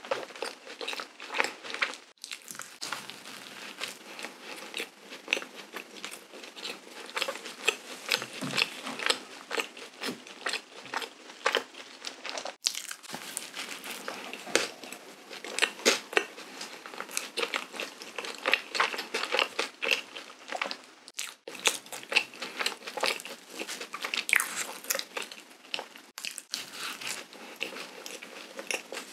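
Close-miked biting and chewing of a soft, sugar-dusted cream-filled doughnut: a dense run of small mouth clicks and squishy chewing, broken by a few brief gaps where the sound cuts out.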